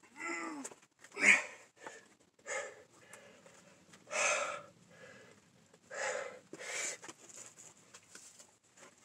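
A bouldering climber's forceful breaths and effort grunts while he pulls through moves on a steep overhang, six sharp exhalations with short gaps between. The first has a brief falling grunt in it, the loudest comes about a second in, and a longer one comes about four seconds in.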